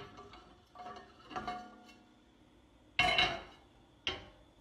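Metal clanks of a hinged waffle puff pan being handled and lifted off a gas stove's burner grate: a few light knocks with a short metallic ring in the first couple of seconds, then two louder clanks about three and four seconds in.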